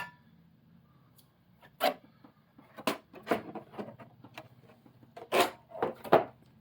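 Handling noises while unpacking a heavy scale model airliner: a sharp click at the start, then a series of short, irregular rustles and knocks.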